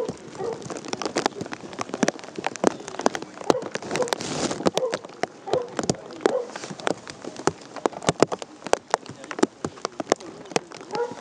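Rain falling, with many irregular sharp taps of drops striking close by over a light hiss.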